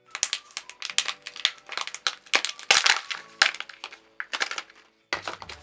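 Sealing foil being peeled off a Kinder Joy plastic egg: a dense run of crinkling and sharp crackles that stops about a second before the end.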